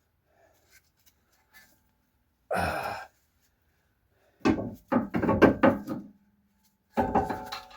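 Metal brake parts and tools clanking and knocking, with a short scrape about two and a half seconds in, a quick run of knocks with brief metallic ringing a couple of seconds later, and a louder clank near the end: a freed brake caliper being handled.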